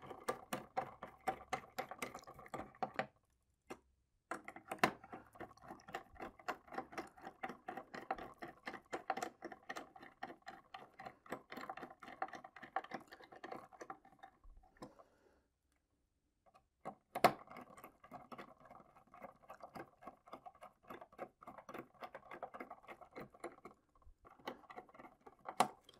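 Hand screwdriver driving the screws that hold the main landing gear to the foam fuselage: a quick run of light clicks with a faint ringing tone, pausing briefly twice.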